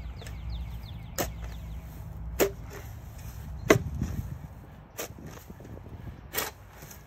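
Shovel blade striking and cutting into soil and sod, five strokes about one every second and a half, the middle one the loudest.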